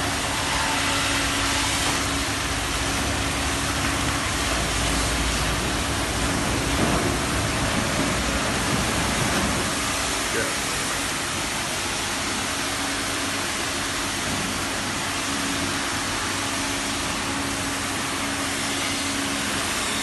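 Steady hiss with a constant machine hum from an automatic motorcycle washing station running, with voices in the background.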